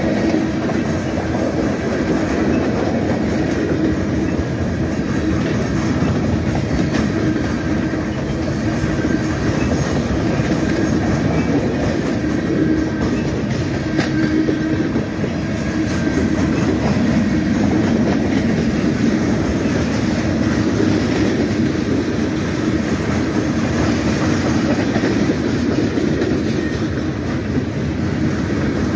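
Freight cars of a mixed freight train (boxcars, tank cars, covered hoppers) rolling past, their steel wheels on the rails making a steady rumble. There is one sharp click about halfway through.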